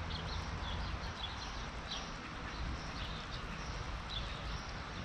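Small birds chirping in short, repeated high notes over a steady low rumble of outdoor background noise.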